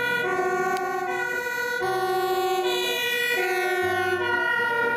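Dutch fire engine's two-tone siren on an emergency run, switching back and forth between a high and a low note roughly every second.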